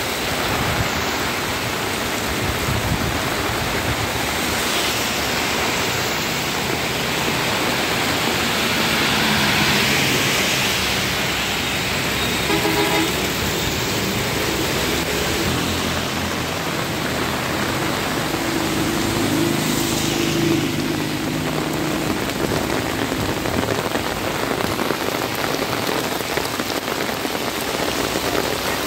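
Heavy rain pouring steadily on a road, with motor vehicles passing through the wet, their tyres hissing and engines humming. The passes are loudest about ten and twenty seconds in.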